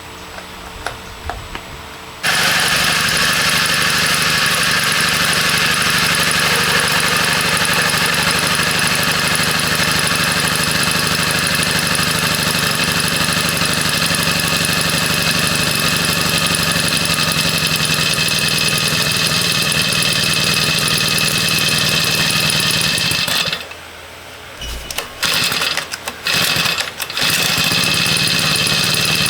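A small engine running steadily, cutting in abruptly about two seconds in. Near the end it drops away and comes back in a few short stutters before running steadily again.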